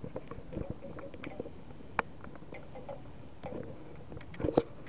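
Handling noise on a handheld camera: scattered light clicks and taps, a sharper click about two seconds in and a cluster of louder knocks near the end.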